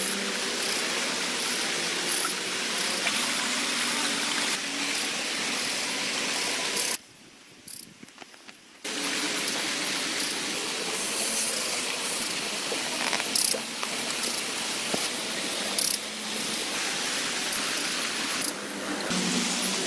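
Steady rain with frequent sharp taps and clicks. It drops out about seven seconds in and returns some two seconds later.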